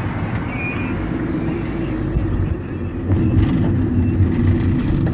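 Car engine and road noise heard inside a car's cabin, a steady drone that grows louder about three seconds in.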